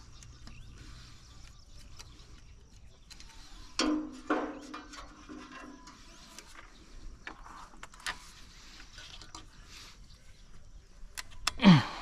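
Speargun being loaded by hand: small clicks of handling, then about four seconds in two louder creaks as the rubber bands are stretched back onto the shaft. Near the end comes one loud, sharp snap that drops steeply in pitch, the speargun being fired.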